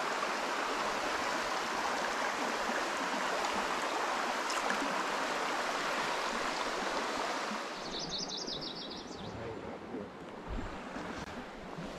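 Small mountain stream flowing, a steady rush of water that drops a little in level about eight seconds in. Just after the drop, a brief, rapid high-pitched trill is heard.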